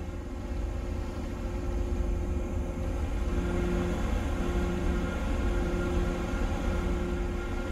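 Steady low rumble of a trailing suction hopper dredger's shipboard machinery, with a constant hum over it.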